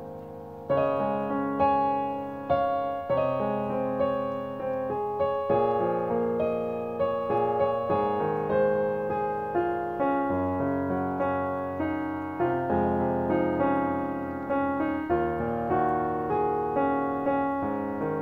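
Background piano music: a calm melody of struck notes and chords that ring and fade, a new note about every half second to second.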